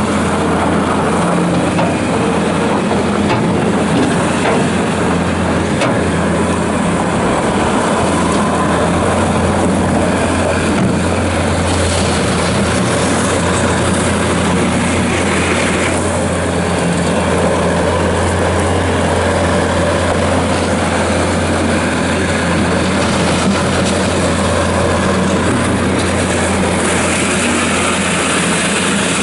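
Bobcat S590 skid steer loader's diesel engine running at a steady speed while the machine is driven around.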